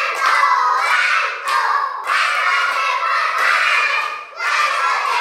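A group of young children shouting together in loud phrases about two seconds long, broken by short pauses.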